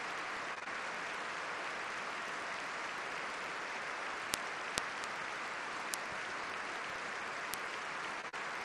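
Arena audience applauding steadily, with a few sharp high ticks in the second half.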